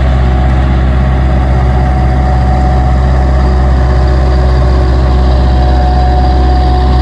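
Diesel engines of two skid steers, a Bobcat 763 and a New Holland LS180, running steadily at work, with a thin steady whine over the engine sound.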